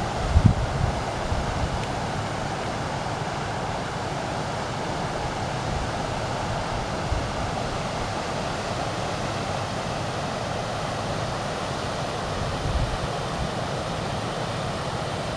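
River water flowing with a steady, even rush. Low wind buffets on the microphone come about half a second in.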